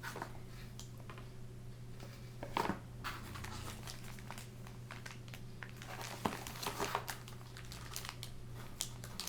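Packaging crinkling and rustling in short bursts as a laptop power supply is handled and unwrapped, over a steady low hum.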